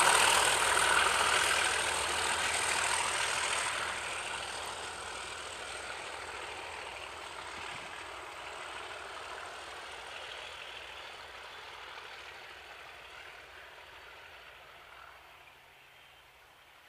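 Class 37 diesel locomotive's English Electric V12 engine running under load while hauling coaches, its steady throb gradually fading away.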